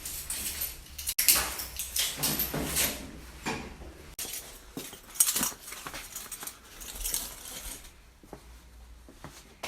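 Small hard objects clinking and rattling as they are handled, a run of irregular sharp clicks that thins out near the end.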